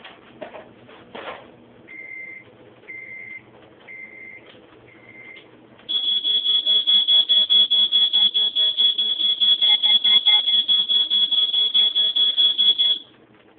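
Four short electronic beeps about a second apart, then a loud, high-pitched electronic alarm beeping rapidly, several beeps a second, for about seven seconds before cutting off suddenly.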